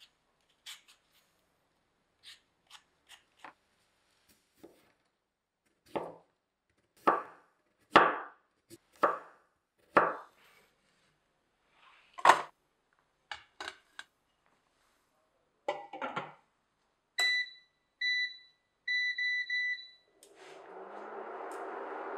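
Light scraping clicks of a peeler on a sweet potato, then a knife cutting the sweet potato into slices on a bamboo cutting board: a run of sharp knocks about a second apart. After that, an induction cooktop's touch controls beep once, again, then three times quickly, and a steady whir starts near the end as the hob comes on.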